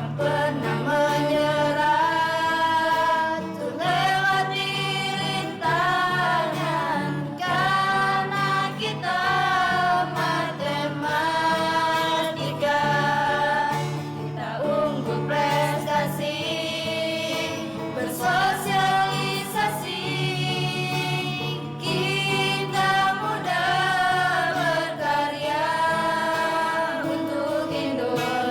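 Background music: a song with sung vocals, layered voices and a steady low accompaniment.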